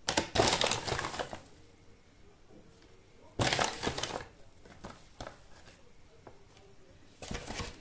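A small spoon scooping besan (gram flour) from its packet and tipping it into a plastic mixing bowl. It comes as several short scraping, rustling bursts: the loudest at the very start, another about three and a half seconds in, and smaller ones later.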